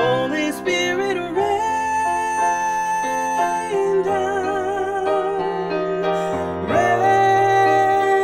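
A woman singing solo with piano accompaniment, holding long notes with vibrato and moving to a new note every few seconds.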